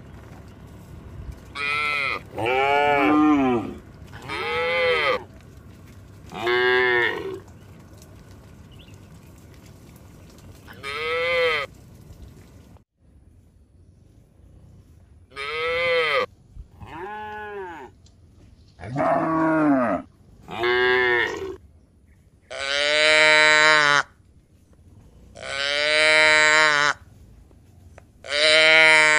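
A herd of cattle mooing repeatedly, about a dozen separate calls, each rising and falling in pitch. The calls grow longer and louder in the second half.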